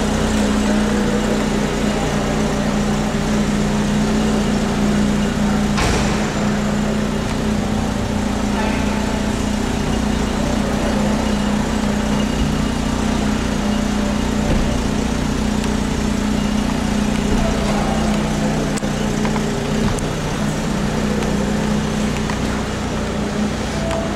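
Lotus Elise Supercharged's supercharged four-cylinder engine idling steadily, with no revs.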